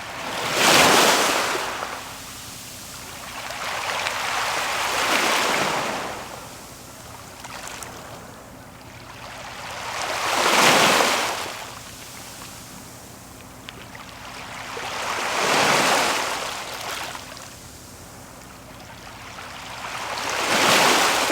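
Sea waves washing in over a beach of smooth round pebbles. Five surges about every five seconds, each rising to a loud rush and then falling back.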